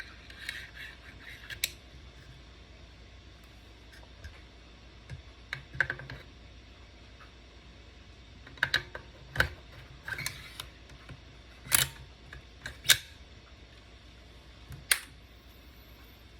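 Scattered metallic clicks and knocks of AR pistol parts being handled while they are lubed for assembly, with a few sharper clacks in the second half.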